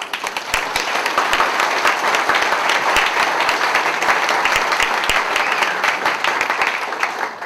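Audience applauding and clapping. It starts at once, holds steady, and dies away near the end.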